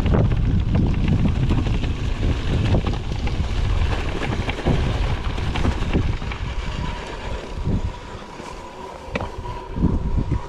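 Wind buffeting the microphone over the rattle and knocks of a mountain bike riding rough ground. About two-thirds of the way through the wind rumble drops, leaving sharper clicks and knocks and a faint steady high tone.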